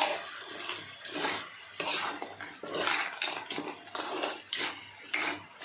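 Metal spatula scraping and turning whole crabs in a wok, the hard shells knocking against the pan in repeated, irregular strokes.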